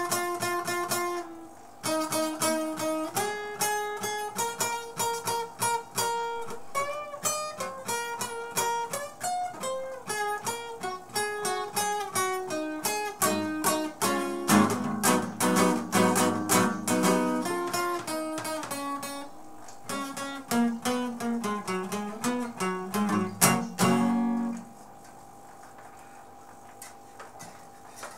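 Acoustic guitar played solo: a run of picked single notes with strummed passages, with a brief pause near the start. The playing ends with a final strum about three-quarters of the way through, after which only faint room noise is left.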